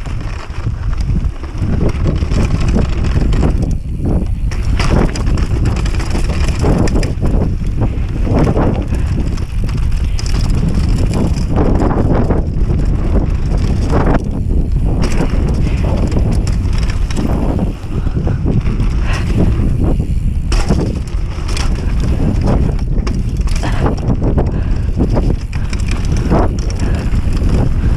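Mountain bike descending a gravel and dirt trail: tyres rolling over the loose surface with frequent knocks and rattles from the bike over bumps, under a steady rumble of wind on the action camera's microphone.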